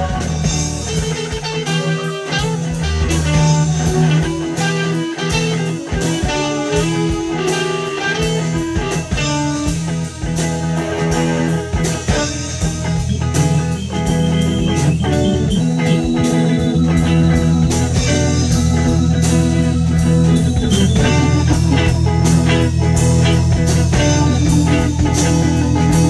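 Live band playing an instrumental rock jam: electric guitars over keyboards and a sustained low bass line.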